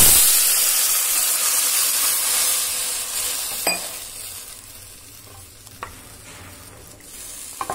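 Water hitting hot mustard oil and tempering spices in a kadai: a loud hiss and sizzle, strongest at the start, that dies down over about five seconds. The pan is being stirred with a wooden spatula, with a few light knocks against the pan.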